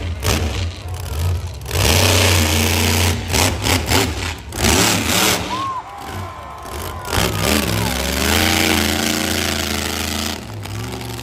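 Monster truck's supercharged, alcohol-burning engine revving hard in surges that rise and fall in pitch as the truck climbs a crushed car and stands up on its rear wheels.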